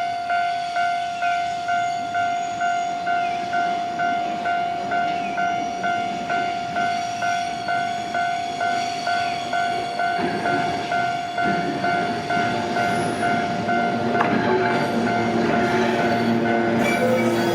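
Railway level-crossing bell ringing in a steady repeating ding, about two strokes a second. Over the second half a train's rumble builds and takes over, with lower steady tones near the end.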